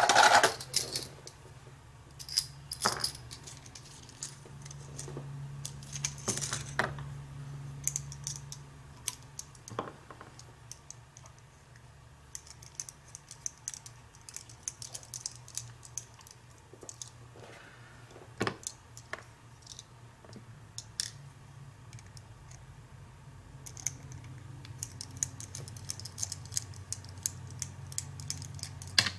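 Small metal clicks, taps and clinks of a padlock and small hand tools being handled, coming irregularly with a denser run of light clicks near the end.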